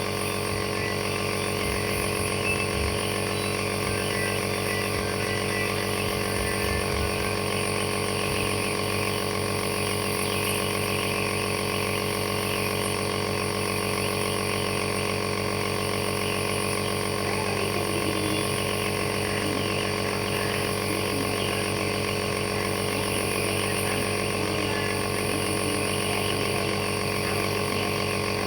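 Compressor nebulizer running: a steady motor hum with a constant hiss over it.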